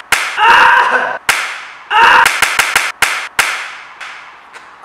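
Hand claps ringing in a room: single sharp claps near the start and about a second in, then a quick run of about five claps and one more. Two loud shouted bursts from the group come between them.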